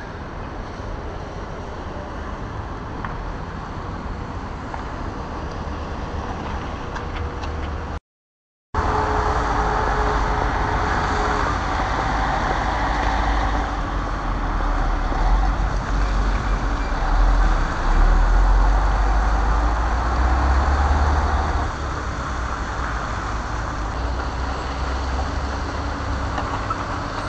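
Street traffic with a bus and cars running. After a short cut about eight seconds in, the steady low rumble of heavy diesel machinery: an excavator and dump truck at work on a demolition site.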